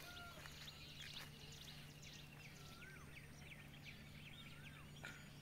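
Faint birdsong: many quick high chirps, with a short rising-then-falling whistle repeated a few times, over a low steady hum.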